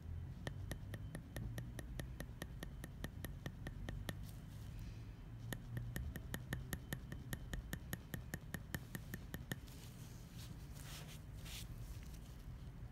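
Manual microshading hand tool with a 14 flex flat needle tapping into a practice skin pad: runs of light, sharp clicks, about four a second, with a short pause about four seconds in. The tapping stops near the three-quarter mark and is followed by a brief rustle.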